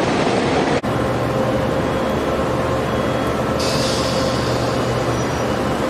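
Passing train noise that cuts off abruptly under a second in, followed by the steady hum of an EO class electric locomotive standing at the head of a commuter train, with a brief high hiss a little past halfway.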